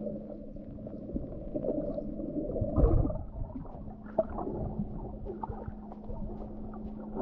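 Muffled underwater sound from a submerged camera: water movement and bubbling over a steady low hum, with a louder gush about three seconds in.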